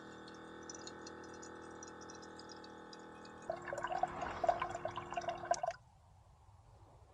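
Small electric water pump humming steadily; about three and a half seconds in its tone changes as water starts splashing, and both stop abruptly about two seconds later. It fits a battery-powered portable camp shower spraying water.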